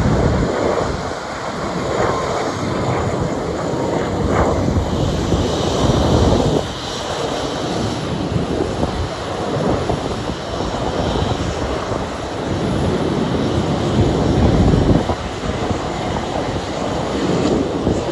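Boeing 737-400's CFM56 jet engines running at taxi power as the airliner taxis: a steady rushing jet noise with a faint high whine in the middle and a low rumble that swells and fades unevenly.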